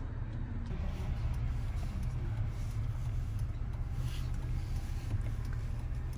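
Steady low rumble of a moving car, heard from inside.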